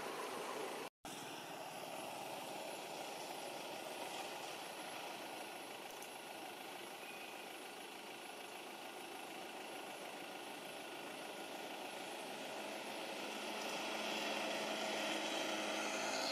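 Steady hum of distant motor traffic, with a vehicle engine running and growing slightly louder near the end. The sound drops out completely for an instant about a second in.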